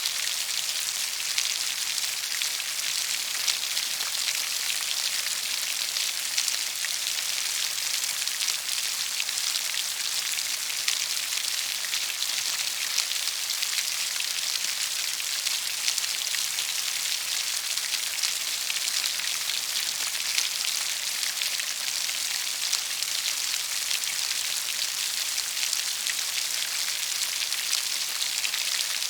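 Steady rain falling, a constant dense hiss of many fine drops with scattered small patters.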